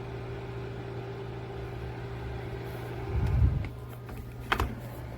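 Dreo PTC ceramic space heater's fan running with a steady hum. About three seconds in there is a low bump, and the hum's tone stops, as the tipped-over heater shuts itself off. A sharp click follows about a second later.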